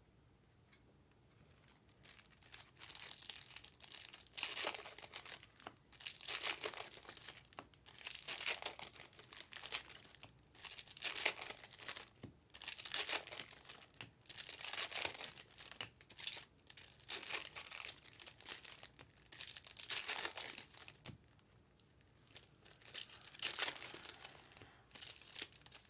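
Crinkly foil wrappers of baseball card packs being torn open and handled, in repeated bursts of crackling and tearing every second or two, one pack after another.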